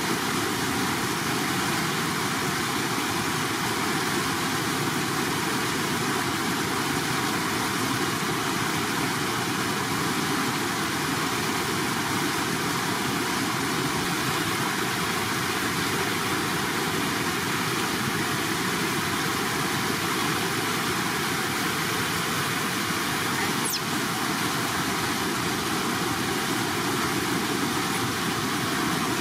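Steady rush of shallow water pouring across and over a low weir.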